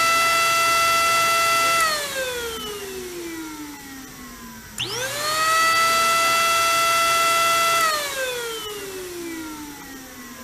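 Mechanical ventilator's blower running with a steady high whine, then winding down in falling pitch. It starts again suddenly about five seconds in, rising to the same pitch, holding and winding down again: the machine cycling through two breaths.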